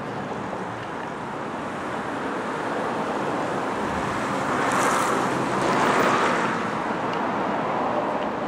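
Street traffic noise: a vehicle's tyres passing on the road, swelling about halfway through and then fading.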